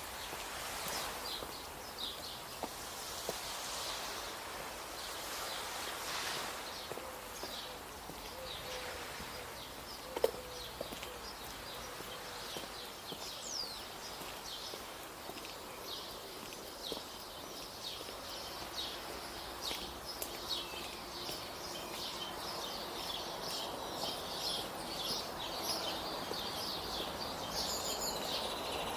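Small birds chirping and twittering over a steady outdoor hiss, the chirps growing busier in the second half. A single sharp click about ten seconds in.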